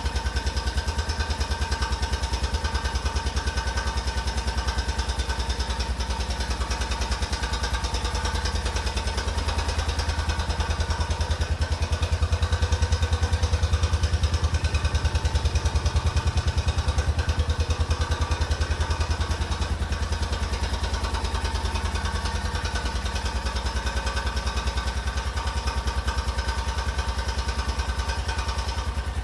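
2004 Honda Rincon ATV's single-cylinder engine idling with a steady, rapid knock, swelling slightly in the middle. The knock is heard only while the engine is cold, and it goes away once the engine warms up.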